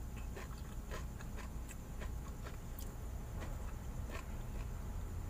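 A person chewing food, with small irregular mouth clicks and smacks, over a steady low hum.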